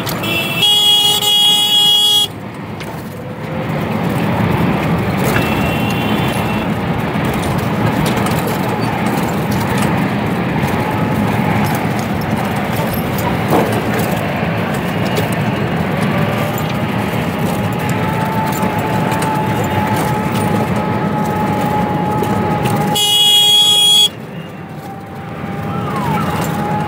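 A vehicle horn sounds twice, a blast of about two seconds near the start and a shorter one near the end, over the steady running noise of an auto-rickshaw ride.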